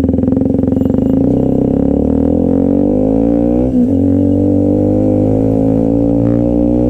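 KTM RC125's 125 cc single-cylinder four-stroke engine, fitted with a GPR exhaust, pulling under way with its pitch slowly climbing. About four seconds in the revs dip sharply and come back at a gear change, then it pulls again.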